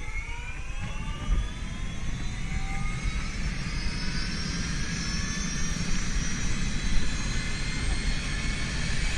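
Aircraft engine running, with a steady low rumble under a whine that rises slowly in pitch.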